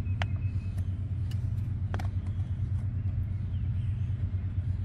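A steady low rumble throughout, with a few sharp, light clicks as a plastic clip is pried off a power seat switch.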